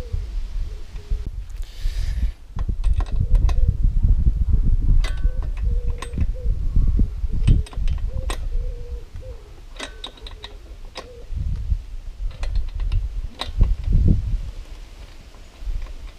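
Ratchet clicking in short irregular runs while a new spark plug is wound into a Mountfield HP164 lawnmower engine, over a low rumble.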